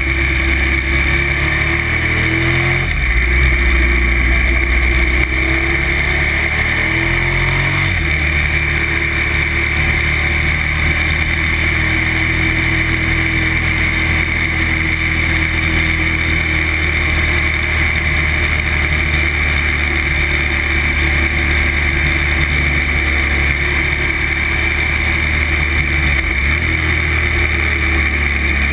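Motorcycle engine running under way, heard from on the bike over steady wind noise. The engine note climbs for a few seconds and then drops sharply about eight seconds in, as at a gear change, and holds fairly steady after that.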